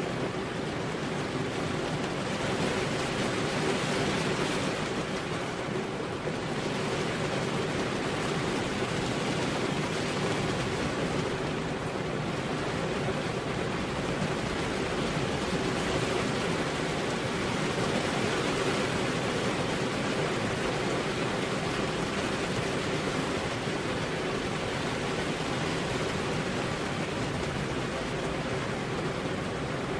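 Heavy rain falling steadily on a road: a dense, even hiss with no thunder.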